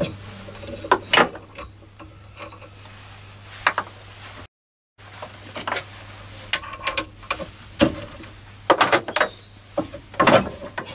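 Hand-tapping a 1/4" BSP thread: a tap wrench turning a tap through a chromed brass part held in a chuck in a vise, with scattered clicks and knocks of metal tools being handled, over a steady low hum.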